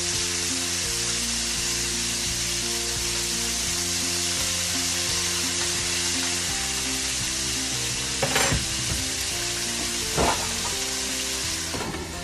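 Chicken frying in hot oil, a steady sizzle. Two knocks come about eight and ten seconds in, and just before the end the sizzle turns muffled as a lid goes on the pan.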